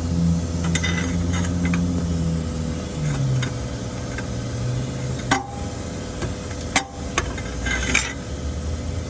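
Metal tools clinking and knocking a few times, sharpest about five and seven seconds in, over a steady low engine hum that drops in pitch about three seconds in.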